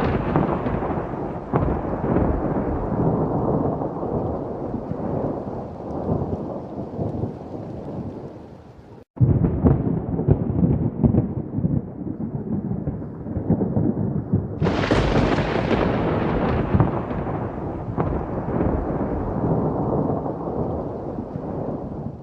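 Rolling thunder rumbling and slowly fading, broken off abruptly about nine seconds in by another rumble. About fifteen seconds in a sharp thunderclap cracks and rolls away slowly.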